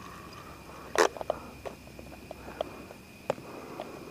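Steady high-pitched trill of night insects, with a few scattered clicks and knocks from handling, the loudest about a second in.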